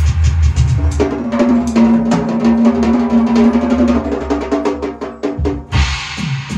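Large drum kit played in fast, dense runs of strikes across drums and cymbals, with a held pitched note underneath for a few seconds; a cymbal crash comes in near the end.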